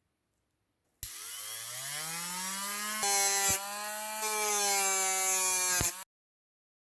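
Small electric rotary tool spinning up, rising in pitch over about a second and then running at a steady whine with a hissing grind as it works the surface. There are a few sharp clicks, and it cuts off suddenly near the end.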